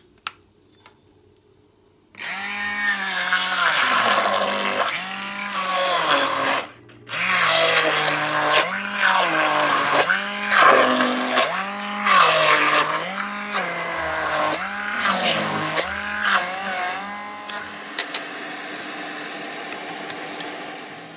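A couple of clicks as the hand blender's metal shaft is fitted to its motor body, then the Braun MQ3025 hand blender running loudly as it purées boiled potato and swede. Its pitch sags and recovers in a regular rhythm, it stops briefly about seven seconds in, and it goes quieter and steadier for the last few seconds.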